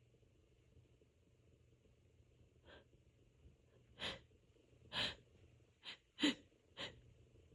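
A rapid fit of induced sneezes from a person with an itchy nose at the tail end of a cold. A faint breath comes about a third of the way in, then five short sneezes follow quickly, the fourth the loudest.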